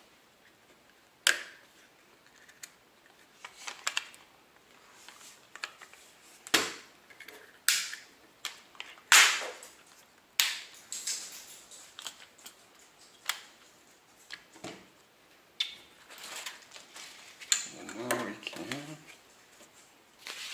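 Sharp, irregular clicks and clacks of an AR-15 rifle's metal and polymer parts being handled and fitted back together, with a few louder knocks.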